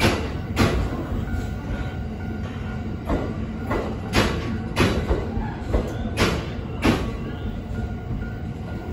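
Cars of the sleeper express Cassiopeia rolling slowly alongside the platform as the train arrives. A steady low rumble is broken by sharp wheel clacks over the rail joints, every half second to a second.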